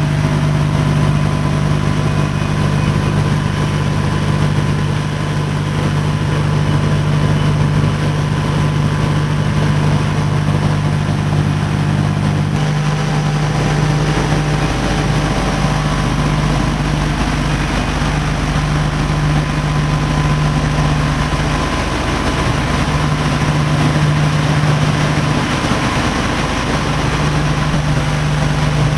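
B-25 Mitchell bomber's twin radial engines droning steadily in cruising flight, heard from inside the airframe, with a deep steady hum. The lowest part of the drone shifts a little about halfway through.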